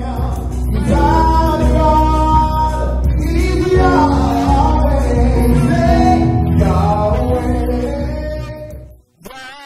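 Live gospel worship music: a male singer holding long notes over keyboard and electric bass. The music drops out abruptly about nine seconds in, leaving quieter singing.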